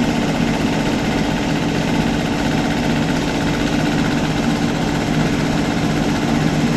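Home-built BT30 machine-tool spindle running at a steady speed: a constant hum under an even whirr, with no change in speed.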